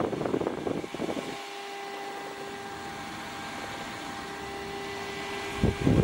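Handheld mini fan running: a steady small-motor whine and hum. A low gusty rumble of its airflow blowing on the microphone covers the first second or so and returns near the end.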